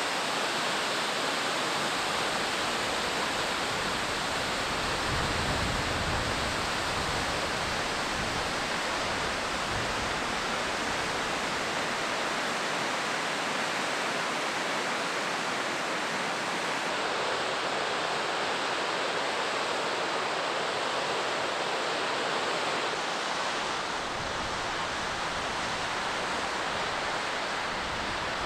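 Rushing river water, an even steady hiss, with a low rumble of wind on the microphone at times.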